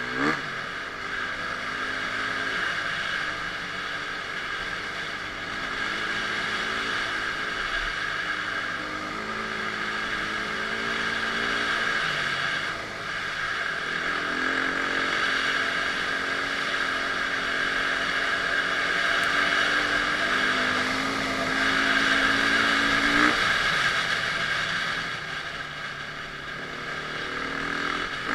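Dirt bike engine running under throttle, its pitch climbing gradually over several seconds and falling away sharply about twelve seconds in and again about twenty-three seconds in.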